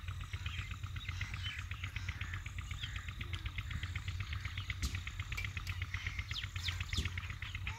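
Birds chirping in scattered short calls over a fast, even pulsing trill and a steady low hum.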